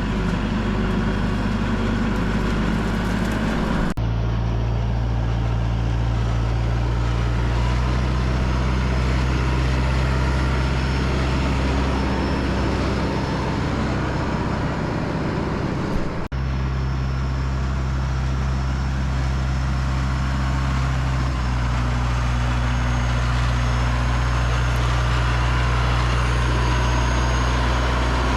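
Tractor engine running steadily, a constant low drone whose pitch jumps abruptly twice, about 4 and 16 seconds in.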